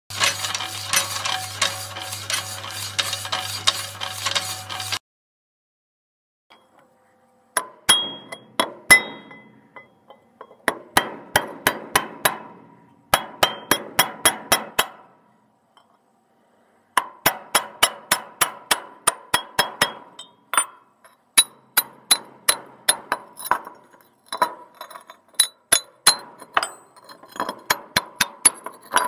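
A hammer striking lengths of steel railway track in quick runs of about four blows a second, each blow with a bright metallic ring, with short pauses between runs. It opens with a few seconds of music under a cartoon title card.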